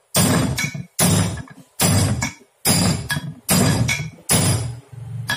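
Hammer blows on the crankshaft bearing seat of an aluminium motorcycle crankcase, about one a second, each a sharp metallic knock that rings out briefly.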